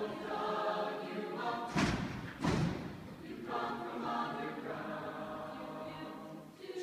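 A mixed choir singing, with two heavy low thumps a little under two and about two and a half seconds in.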